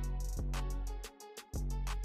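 Background music with deep sustained bass notes starting about once a second under a quick, steady high ticking beat.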